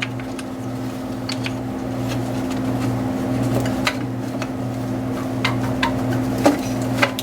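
Scattered light clicks and knocks of parts being handled during thermostat housing removal, over a steady low hum.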